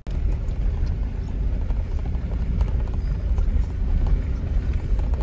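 Steady low rumble of a 4x4's engine and tyres on a gravel road, heard from inside the cab as it climbs switchbacks, with a few faint ticks.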